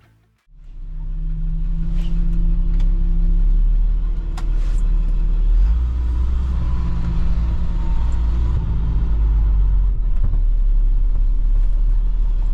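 Vehicle driving along the road: a steady, loud low rumble of engine and road noise.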